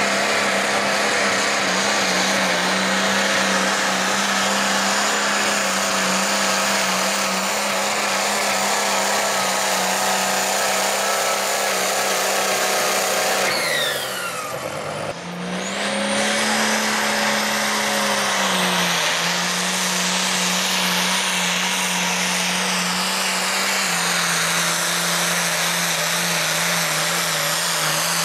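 International 666 pulling tractor's diesel engine at full throttle under heavy load as it drags a weight-transfer sled, a loud steady drone held near one pitch. The sound breaks briefly about halfway through, then picks up again at the same steady pitch.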